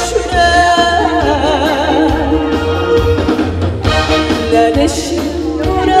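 A woman singing a Korean trot song live into a microphone, her voice wavering in vibrato about a second in, over an instrumental backing with bass and drums, through the stage speakers.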